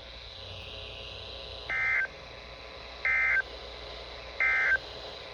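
Three short bursts of Emergency Alert System SAME data tones, evenly spaced about a second and a half apart, over faint steady radio hiss. Coming straight after the spoken warning, they are the End of Message (EOM) code that closes the alert.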